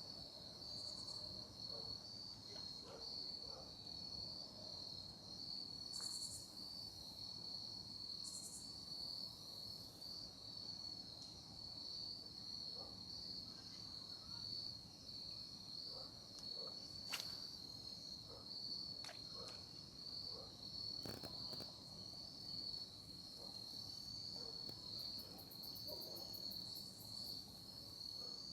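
A chorus of crickets chirping steadily in a high, even pulse, with a few brief higher buzzes and scattered faint clicks.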